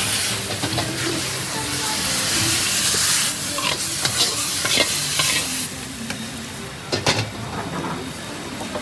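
Food sizzling in a wok over a gas burner while a metal spatula stirs and scrapes it, with sharp clanks of the spatula against the wok. The sizzle dies down about two-thirds of the way through, leaving a few scrapes and knocks as the wok is scraped out into a clay pot.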